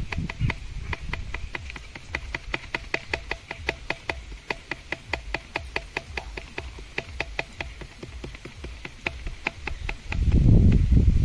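Rapid light tapping on a folded cardboard scoop, about five taps a second, to shake firecracker gunpowder into a plastic bottle. A brief louder low rumble comes near the end.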